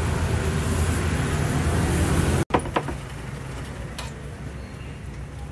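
Steady low rumble of roadside traffic that drops abruptly to a quieter background about halfway through, with a few sharp clicks.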